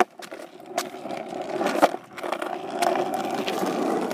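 Skateboard wheels rolling over asphalt, a steady rumble that grows louder through the first couple of seconds and then holds. A few sharp knocks come in the first two seconds.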